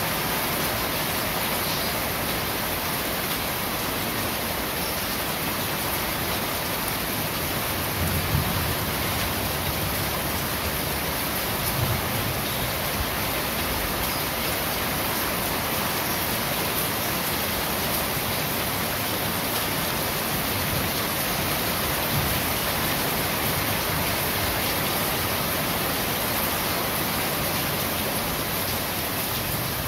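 Steady rain falling on a corrugated roof, a dense, even hiss. Two brief heavier thuds come about eight and twelve seconds in.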